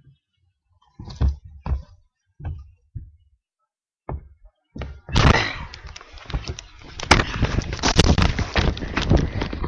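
Several dull separate thuds, then from about five seconds in loud, continuous rubbing, knocking and clicking as the webcam is picked up, covered and handled.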